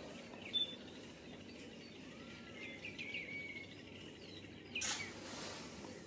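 Faint bird calls, a few short quick notes about two to three seconds in, over a steady outdoor background hiss, with a brief rush of noise near the end.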